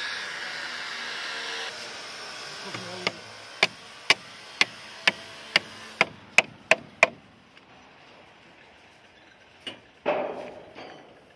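A rushing noise for the first couple of seconds. Then about ten sharp hammer blows on steel, roughly two a second and quickening toward the end. A heavier clank with a short ring follows near the end.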